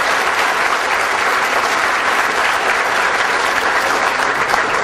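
Audience applauding: many hands clapping steadily and loudly.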